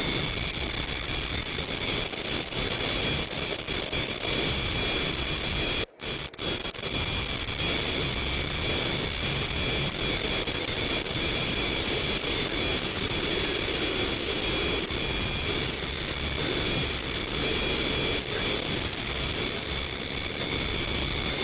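Automatic KF94 mask-making machine running: a steady mechanical noise with several faint high whining tones over it, briefly cutting out about six seconds in.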